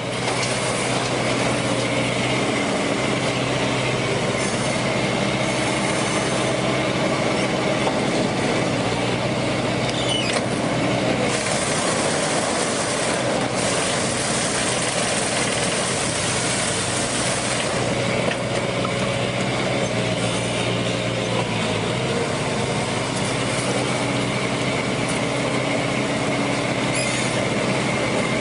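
A machine running steadily: a continuous mechanical noise with a steady engine-like hum under it, fading in at the start and out at the end.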